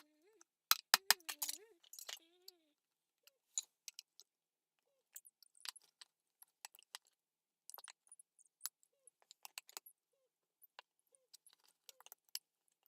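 Scattered light metallic clicks and clinks, small metal parts and tools being handled and knocked together at irregular intervals.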